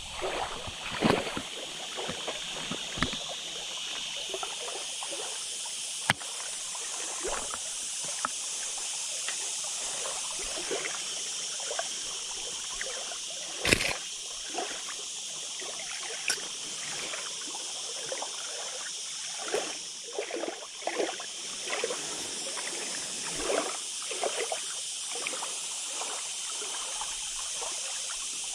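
Water splashing and sloshing at the shoreline as a hooked carp is drawn in and lifted out in a landing net, with scattered knocks and rustles from handling the net and fish over a steady hiss. A single sharp knock stands out about halfway through.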